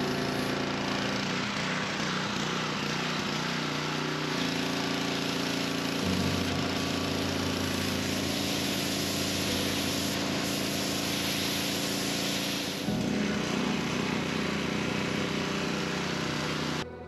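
Pressure washer running, its engine humming steadily under the loud hiss of the high-pressure water jet blasting dirt off old barnwood boards. It cuts off suddenly near the end.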